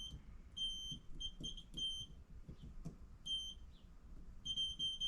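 Multimeter continuity tester beeping in short, uneven beeps, with a longer beep near the end, as the probes make and break contact. The beep means the circuit being tested conducts.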